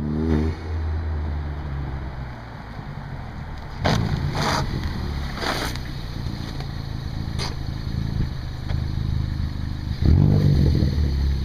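Turbocharged 2.0-litre four-cylinder of a Ford Focus ST running through a straight-piped 2.5-inch exhaust with no resonator or muffler, revving up at the start as the car approaches. A few sharp pops come in the middle, and the engine is revved hard once near the end, the loudest part.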